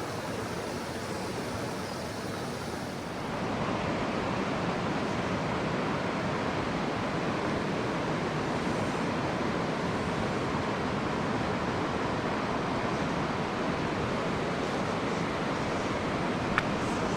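Steady rush of mountain-stream water, growing louder a few seconds in, with a single sharp click near the end.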